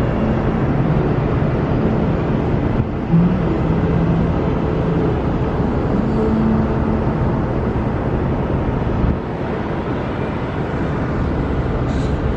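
Steady, loud low rumble with a faint hum, the running noise aboard a moving cruise ship, with a brief bump about three seconds in.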